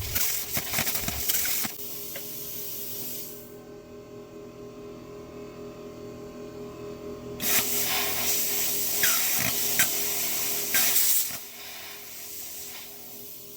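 Plasma cutter cutting sheet steel in two bursts of hiss, a short one at the start and a longer one of about four seconds from midway, with a steady machine hum running underneath.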